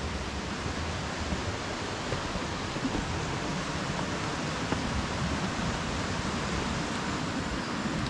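Steady rushing of a mountain stream's flowing water, an even noise without a break.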